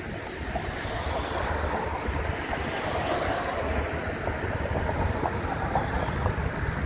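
Steady street traffic rumble mixed with wind buffeting the microphone; a box truck passes close by near the end.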